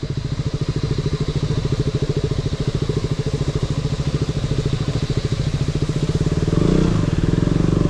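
Motorcycle engine running steadily at low revs with an even, rapid pulse, heard from on the bike.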